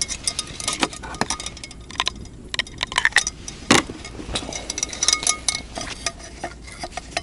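Metal clinking and tapping: a camp ladle and aluminium wire being handled and fitted together, with many quick irregular clicks, some ringing briefly.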